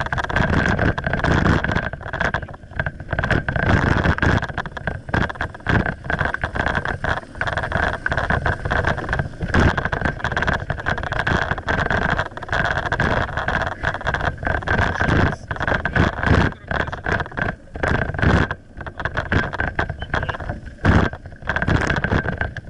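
Wind buffeting and rumbling on a moving bike-carried action camera, with many irregular knocks and rattles as it jolts over brick paving, and a steady high hum.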